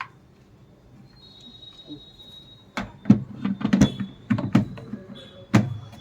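Clicks and knocks of a washing machine's plastic detergent drawer being handled and pushed into place: one click at the start, then a quick run of sharp clatters from about three seconds in.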